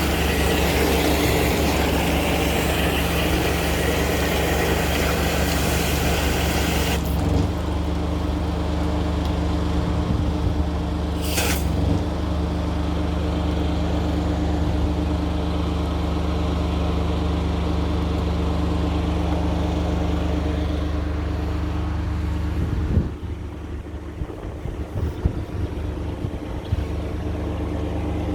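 High-pressure drain jetting machine running steadily, with the hiss of water jetting through the hose for the first seven seconds or so. A short sharp hiss comes about eleven seconds in, and the machine's note drops and quietens about 23 seconds in.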